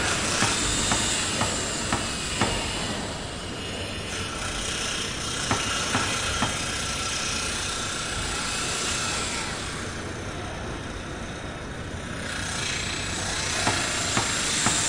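Construction-site ambience: a steady machinery drone with hissing, broken by scattered sharp knocks, grouped near the start and again near the end.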